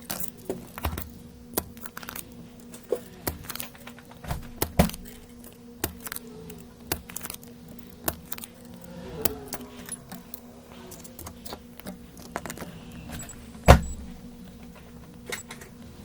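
Small tools and parts being handled on a repair bench: scattered light metallic clicks and taps, with one sharper knock about three-quarters of the way through, over a steady low electrical hum.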